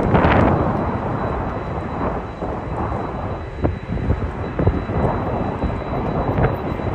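Jet aircraft engines rumbling, heavily buffeted by strong gusty wind on the microphone, which gives uneven thumps and swells in the sound.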